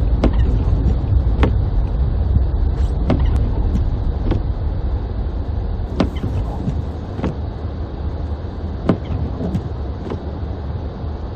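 Car driving slowly on snowy streets, heard from inside the cabin: a steady low rumble of engine and tyres, with a sharp click or knock every second or so.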